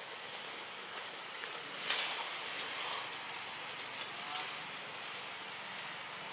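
Steady outdoor background hiss with a few light clicks and crackles, one sharper about two seconds in.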